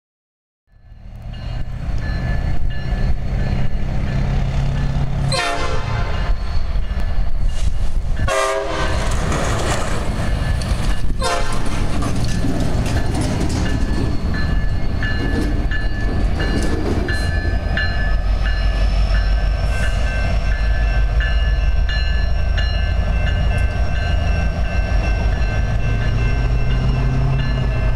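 Two Canadian National SD70M-2 diesel locomotives, EMD 710 prime movers, rumbling as they move a cut of cars at low speed. The horn sounds briefly three times, about five, eight and eleven seconds in, and a grade-crossing bell rings steadily through the second half.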